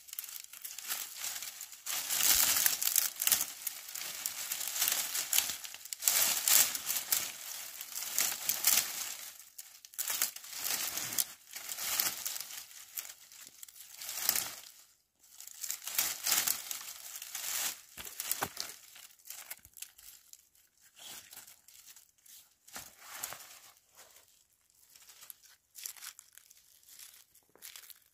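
Dry brushwood twigs and branches rustling and crackling as they are handled and pushed together into a bundle. The sound comes in irregular bursts that grow sparser in the second half.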